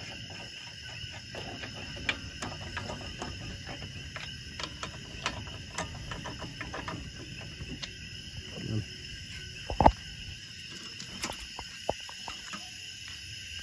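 Steady chorus of night insects chirring, with scattered light clicks and knocks over it and one sharp knock about ten seconds in.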